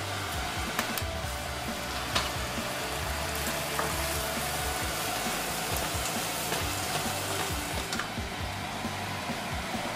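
Chinese sausage and garlic sizzling in a nonstick frying pan over high heat, stirred with a wooden spatula that clicks against the pan a few times.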